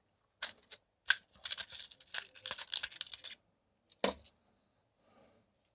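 Small plastic clicks and crinkling as a packet of pre-made vape coils is handled and opened, then a single knock as something is set down on the bench.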